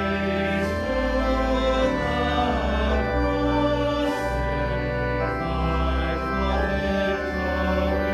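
Church organ playing a hymn in sustained chords that change about once a second over deep bass notes, with voices singing along.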